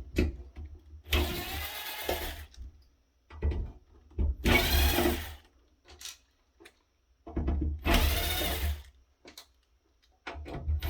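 Power drill backing out screws from the back of a rack-mount controller, in four short runs of a second or so each with pauses between.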